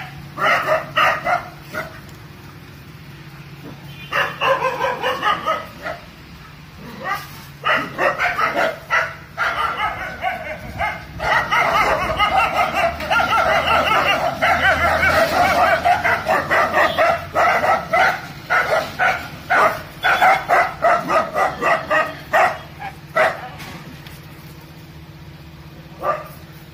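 Two Kombai dogs barking at a gate in rapid strings of barks. The barking comes in bouts, runs almost without a break through the middle and thins to a few single barks near the end. It is territorial guarding aggression aimed at a neighbour's dog being walked past the house.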